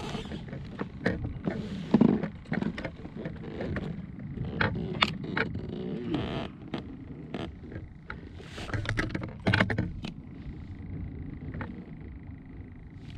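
Irregular clicks, knocks and rattles of gear being handled aboard a plastic kayak, over a low steady rumble; the knocking dies away about ten seconds in, leaving the rumble and a faint steady high tone.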